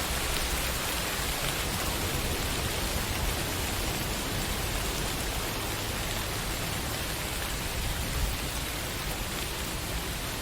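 Steady rain falling, an even wash of drops on surfaces with no breaks.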